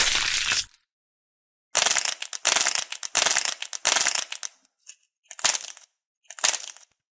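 Crunchy slime being squeezed and crushed by hand: dense crackling in several bursts, broken by a sudden full silence early on and shortening to brief crunches toward the end.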